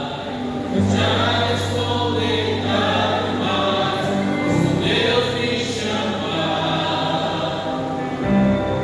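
A vocal group of worshippers singing a gospel worship song together, with a low note held steadily underneath from about a second in until near the end.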